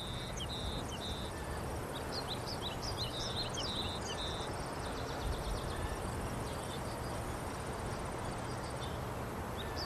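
Outdoor ambience: a steady background hiss with chirping from birds and insects, in short runs during the first half and again near the end.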